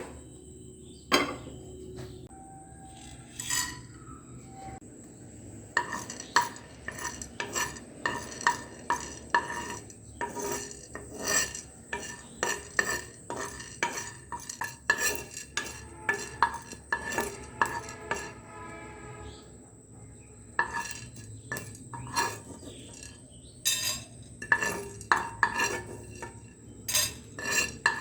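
A metal kitchen utensil stirring and clinking against metal cookware: many quick, irregular knocks and scrapes, some with a short ring, thickest from about six seconds in.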